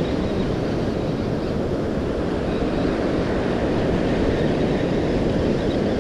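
Wind buffeting the microphone over the rush of breaking surf: a steady, rumbling noise.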